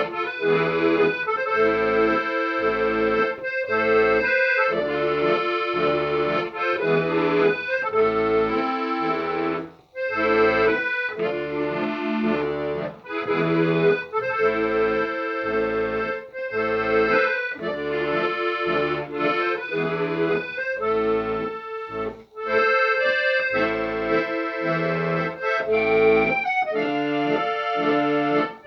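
Instrumental music: a melody over a steady, even beat of bass notes and chords, breaking off briefly twice.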